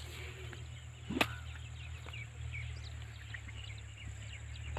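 Small birds chirping faintly over a steady low rumble, with one short, sharp rising whoosh about a second in.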